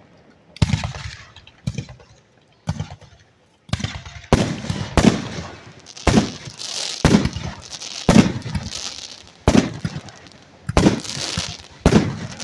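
Aerial firework shells bursting directly overhead: about a dozen sharp booms, roughly one a second and coming faster after the first few seconds, with crackling trails between some of them.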